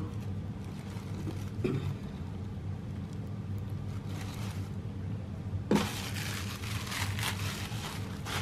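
Hands taking the net and packaging off a new human-hair wig and handling the hair: soft rustling that grows louder and scratchier about six seconds in, over a steady low hum.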